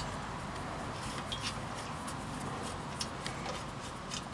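Scattered light clicks as loosened brake caliper bolts are turned out by hand from a rusty caliper, over a steady background hiss.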